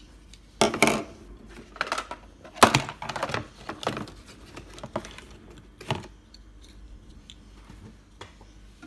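Hard plastic toy cases and cardboard boxes being moved and set down on a table: a string of irregular clicks, knocks and clatters, the busiest in the first four seconds.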